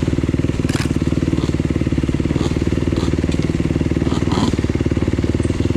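Off-road motorcycle engine running at a steady, even throttle, with a couple of brief sharp knocks about a second in and again near the four-second mark.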